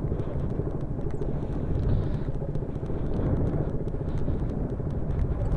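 Motorcycle riding down a rough, stony dirt track: the engine running steadily at low revs under a continuous rumble and rattle from the bike jolting over loose gravel.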